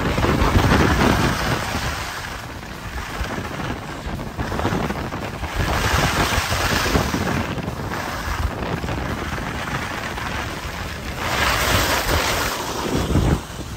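Wind rushing over the microphone of a camera carried down a ski run. The rush swells and eases three times.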